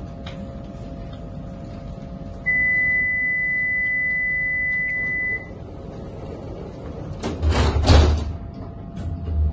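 A single steady high-pitched electronic beep lasting about three seconds, the warning tone of a stationary tram with its doors open, over the tram's steady low hum. Near the end comes a brief burst of rushing noise with a low rumble.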